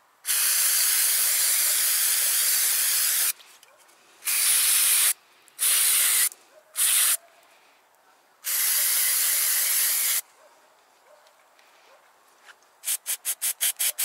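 Aerosol cleaner spraying in five hissing bursts, the first about three seconds long, the others shorter, to flush mud out of a hydraulic hose's quick-connect coupler. Near the end comes a quick run of short scratchy strokes.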